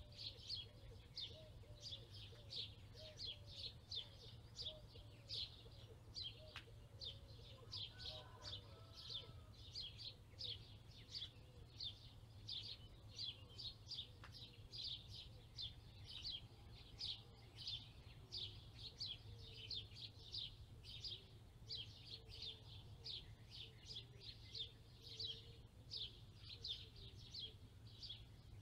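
A small bird calling in a steady, unbroken run of short high chirps, about two a second.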